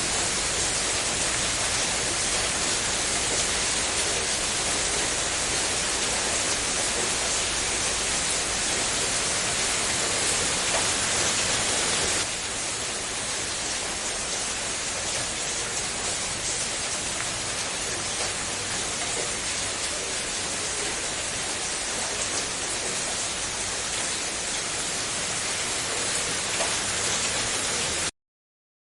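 Steady heavy rain, a dense even hiss of drops. About twelve seconds in it turns slightly quieter and duller, and near the end it cuts off suddenly.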